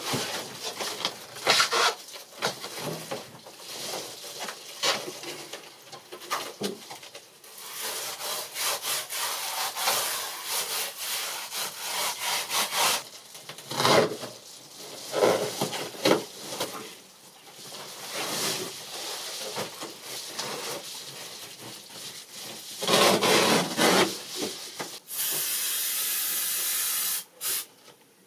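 Foil-faced bubble insulation crinkling and rustling in irregular bursts as it is handled and pressed onto the bus's metal walls. Near the end an aerosol can of spray adhesive hisses steadily for about two seconds, then cuts off.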